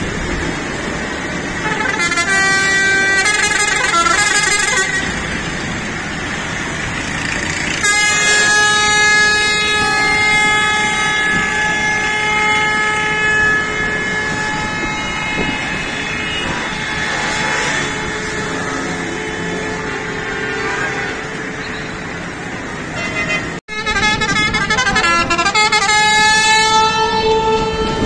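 Pakistani bus pressure horns (air horns) sounding over street traffic: several short multi-tone blasts about two seconds in, one long held blast of several tones from about eight seconds in lasting some five seconds, and more blasts after a brief break near the end.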